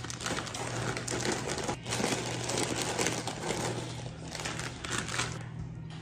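Clear plastic snack bag crinkling as crunchy fried pieces are shaken and tipped out of it by hand onto a plate, a dense run of crackles and rattles that eases off near the end.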